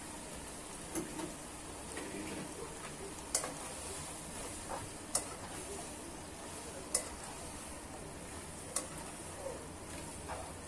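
Celery sizzling as it stir-fries in a wok while a spatula stirs and turns it. Sharp clicks of the spatula striking the pan come about every couple of seconds over the steady sizzle.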